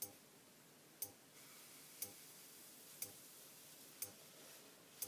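Faint, regular ticking, one short tick each second, over near silence.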